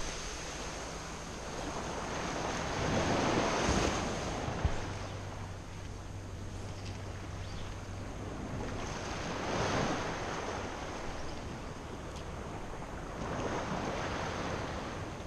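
Small waves washing and lapping in shallow seawater, swelling and fading every few seconds, with wind on the microphone.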